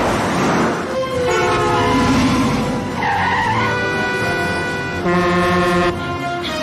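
Car tyres skidding and screeching under hard braking, with a car horn blaring for about a second near the end, over orchestral film music.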